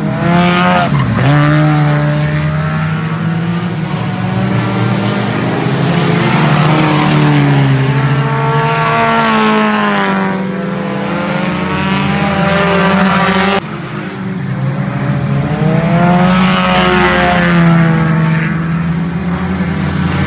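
Race car engines on a dirt oval revving up and easing off as the cars lap, several at once, their pitch rising and falling as they pass. The level drops suddenly about two-thirds of the way through, then builds again.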